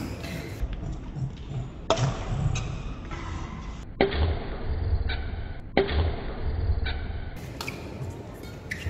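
Badminton racket strikes on a shuttlecock during a rally: sharp hits about two seconds apart, three of them loud, over a low steady background.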